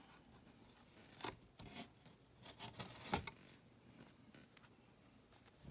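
Faint rustling, sliding and light snaps of 1988 Topps cardboard baseball cards being flipped through by hand. There is a sharper snap about three seconds in.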